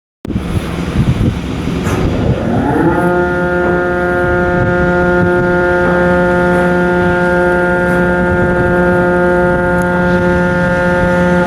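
Ship's horn sounding one long continuous blast. Its pitch rises as it comes up to full tone a couple of seconds in, then holds steady over wind and engine rush.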